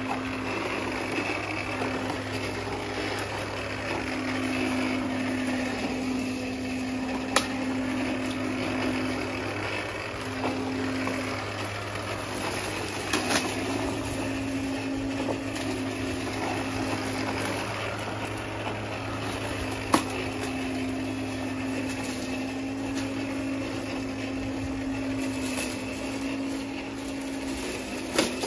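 Worx 40V 14-inch cordless electric lawn mower running and cutting grass: a steady electric whir and hum that wavers and breaks briefly a few times as it is pushed. A few sharp clicks are heard over the whir.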